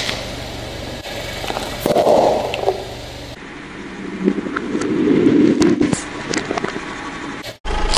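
Car tyre rolling over small plastic toys and crushing them: cracking and crunching plastic over a low engine hum. There are two louder bouts of crunching, about two seconds in and again around five seconds in as the tyre rolls onto the toy bottles.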